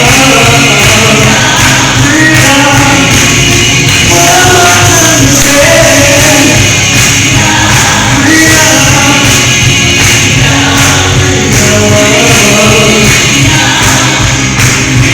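Live gospel song: voices singing together like a choir over loud band accompaniment with a steady beat.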